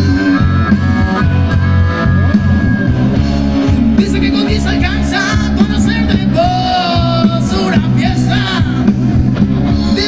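Live blues-rock band playing loud: electric guitar, bass and drums, with a harmonica holding long notes over the first few seconds, then a man singing.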